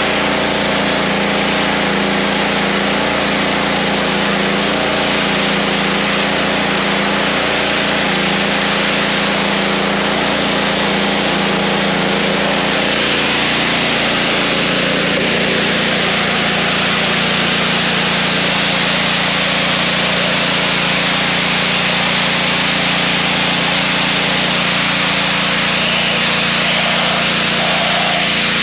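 Pressure washer running steadily, its motor's hum under the loud hiss of the high-pressure jet spraying onto concrete.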